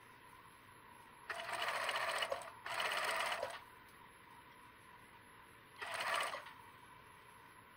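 Industrial single-needle lockstitch sewing machine running in three short bursts of rapid stitching as a seam is sewn through double-faced wool, two close together about a second in and a shorter one near the end.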